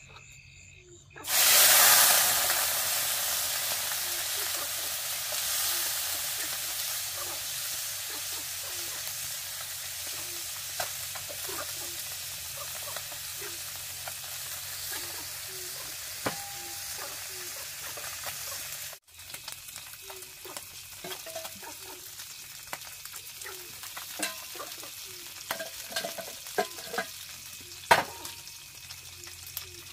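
Food dropped into hot oil: a sudden loud sizzle about a second in that slowly dies down to steady frying. After a break, quieter frying with scattered clicks and a sharp knock near the end.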